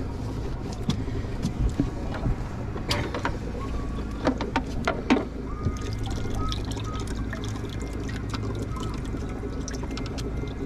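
Steady low rumble of a boat on the water, with scattered knocks and clicks of gear being handled in the boat and some splashing water.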